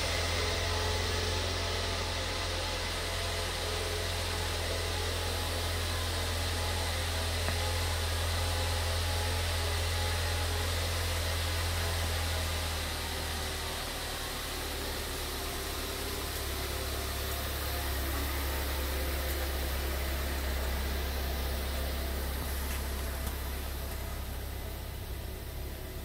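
2013 Lincoln MKZ's 2.0-litre four-cylinder engine idling steadily, a low hum under a constant hiss. The hum settles slightly lower about halfway through.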